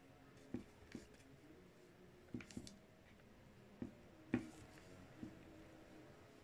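Fingers tearing and handling a fried-chicken tortilla wrap on a plate close to the microphone: scattered soft crinkles and sharp little clicks, the loudest about four seconds in.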